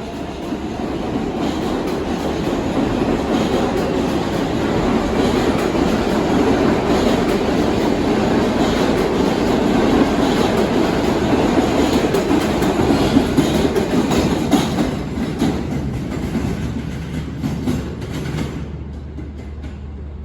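R188 subway train running past: dense wheel-on-rail noise with scattered knocks, building over about ten seconds, then fading and dropping off sharply near the end.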